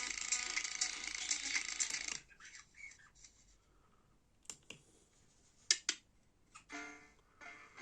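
Dense crackling and clicking noise that cuts off about two seconds in, then a few isolated sharp clicks; pitched notes of music begin near the end.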